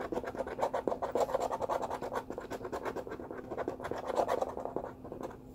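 Rapid scratching of the coating off a paper lottery scratch-off ticket: many quick back-and-forth strokes in a row, dying out just before the end.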